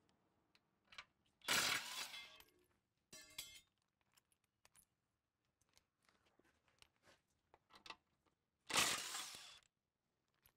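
Impact wrench with a 19 mm socket rattling in two bursts of about a second each, about seven seconds apart, as it spins out residue knife bolts. Between the bursts come light metallic clinks and a short rattle of the loosened bolts.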